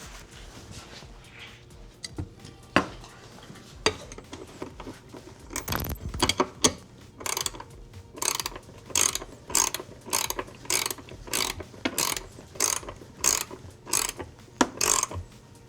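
Ratchet clicking in regular strokes, about one and a half strokes a second, after a few separate knocks and clanks of metal parts being handled.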